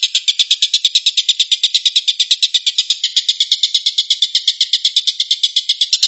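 Oriental dollarbird (tengkek buto) giving its rapid 'tembakan' call: an unbroken, even series of harsh, high notes at about a dozen a second.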